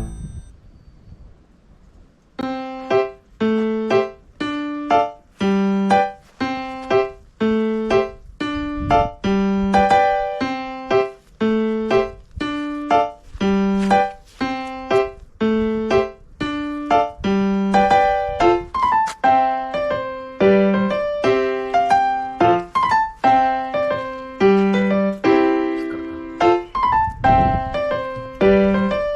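Background piano music: after a short lull in the first two seconds, a piano plays an evenly paced melody of single notes, about two a second.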